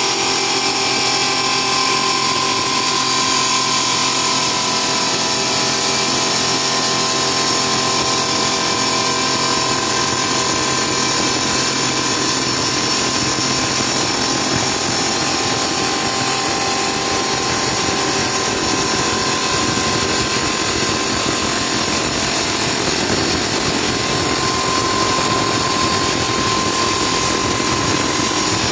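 CNC cutting machine running steadily, a constant whine of several held tones over a dense cutting noise.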